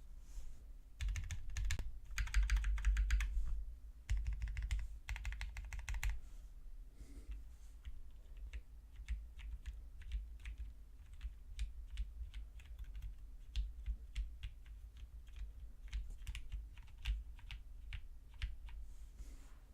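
Typing on an idb 60 prototype mechanical keyboard with Greetech red linear switch stems in retooled Cherry housings. Two rapid runs of keystrokes in the first six seconds, then slower, separate keystrokes.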